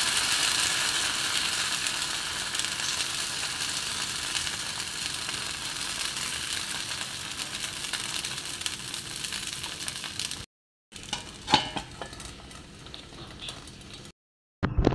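Rice batter for Goan polle sizzling on a hot oiled pan as it is spread round with a ladle, a steady hiss that slowly dies down. After a short break, a few light metal clicks as a steel lid goes on the pan.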